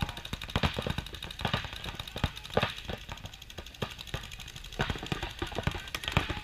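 Paintball markers firing during a game: an irregular, rapid string of sharp pops, several a second.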